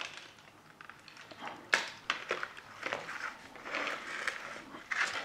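Plastic packaging tray crackling and clicking in irregular bursts as it is handled, with a few sharper clicks.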